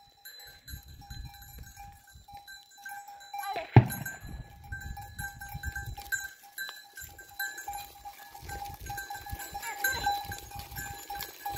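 Herd of goats on the move: the bells the goats wear ring and clank over and over, over the scuffing of many hooves on stony ground. A single sharp knock sounds about four seconds in.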